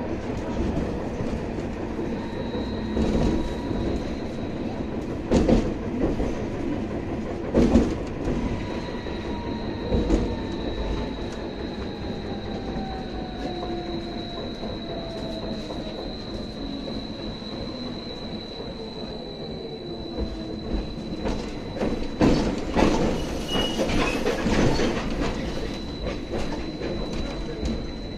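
Inside a BKM 802E electric vehicle under way: a steady high whine from the electric drive, a lower whine that slowly falls in pitch, and several knocks and rattles over the road.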